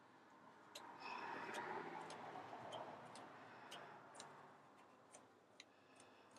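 Near silence: faint ticks at about two a second, with a soft rubbing sound from about one to three seconds in as fingers turn the knurled brass thumb screw.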